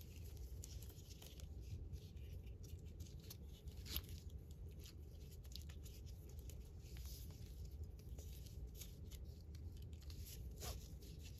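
Faint handling sounds of a nylon NATO watch strap being fitted: light scattered clicks and rustles of the webbing, metal hardware and watch, with a slightly sharper click about 4 s in and another near the end, over a low steady hum.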